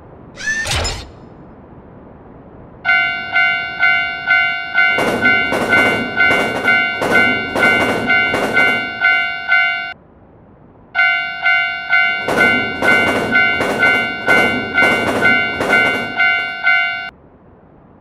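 Japanese railroad crossing warning bell ringing its electronic 'kan-kan' tone a little over twice a second, in two spells: from about three to ten seconds in, and again from about eleven to seventeen seconds in. A louder rhythmic clatter is layered over the middle of each spell. A short whooshing sound effect comes just under a second in.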